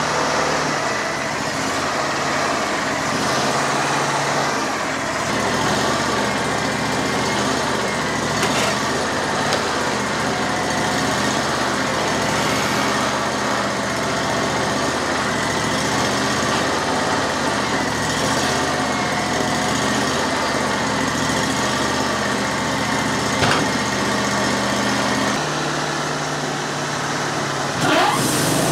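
Wood-Mizer LT40 hydraulic bandsaw mill running steadily under load as its band blade cuts through a monkey puzzle log, with a few sharp clicks.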